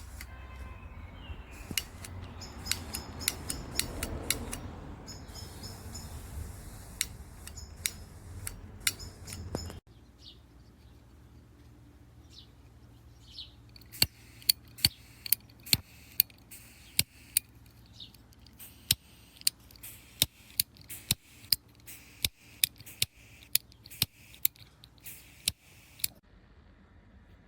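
Butane torch lighter insert's igniter being clicked over and over: sharp clicks, coming evenly about twice a second in the second half. For the first ten seconds a steady rushing noise runs under the clicks and cuts off suddenly.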